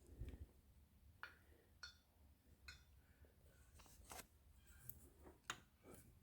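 Near silence: room tone with a few faint, scattered clicks and light taps, as of engine parts being handled.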